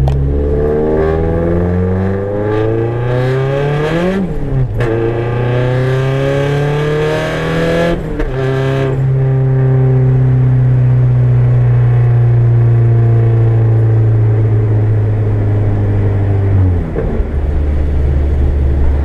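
Turbocharged Nissan KA24DET 2.4 L four-cylinder on 7 psi of boost, with an exhaust leak, pulling hard through 2nd gear. It rises in pitch for about four seconds, drops at the shift into 3rd and climbs again for about four seconds with a rushing hiss. After the lift-off it runs steadily at lower revs, then drops back toward idle near the end.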